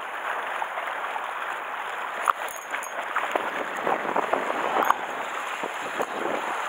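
Sea water sloshing and splashing against shore rocks: a steady rush of surf with scattered small splashes and clicks.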